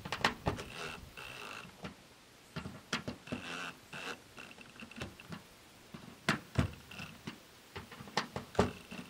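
Cordless drill driving screws to mount a shore power inlet on a van's side panel: several short runs of motor whine, with clicks and knocks between them.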